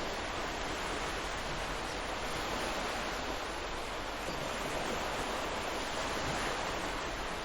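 Ocean surf: a steady, even wash of waves, with no single break standing out.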